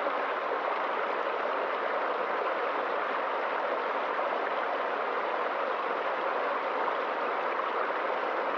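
Water of a small stream tumbling over little waterfalls: a steady, even rush.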